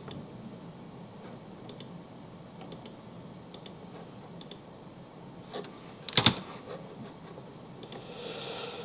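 Sparse clicks on a computer keyboard and mouse: single key presses and clicks spaced about a second apart, with one louder knock about six seconds in.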